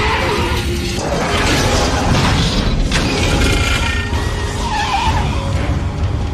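Dense action-film soundtrack: music score over the rumble of heavy truck engines, with metal scraping and crashing along the road.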